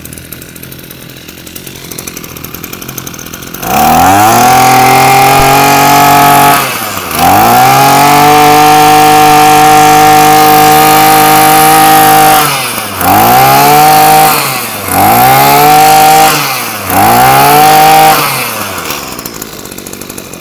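Maruyama BC21 21cc two-stroke brushcutter engine on a test run. It idles, then is revved to full throttle for two long runs a few seconds each, with a rising whine each time it is opened up. Three quick throttle blips follow before it falls back to idle near the end.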